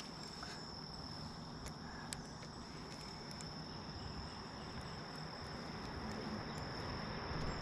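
Insects trilling in one steady high-pitched tone over a low, even rumble, with a few faint ticks.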